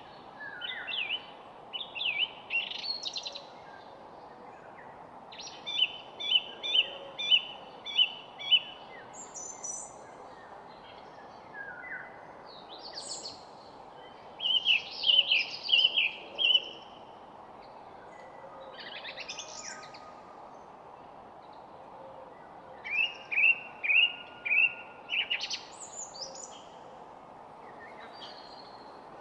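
Songbirds singing in short phrases of rapidly repeated chirping notes, each phrase a second or three long, with pauses of a few seconds between them, over a steady background noise.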